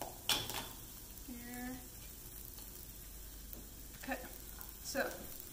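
Red curry paste, shallots and lemongrass frying in oil in a pan, a faint steady sizzle. A few sharp clicks and knocks come over it, the loudest about a third of a second in and two more near the end.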